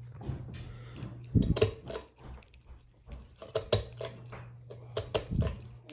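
Emerson Northwind ceiling fan with a steady low hum, while its pull chain is tugged: a series of sharp metallic clicks and rattles from the chain and switch, and the chain is hard to pull.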